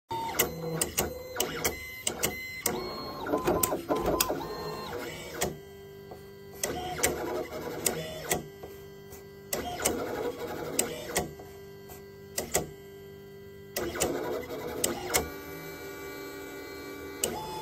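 Pen-plotting drawing robot at work on paper: its motors whine in short steady runs that start and stop, with many sharp clicks in between.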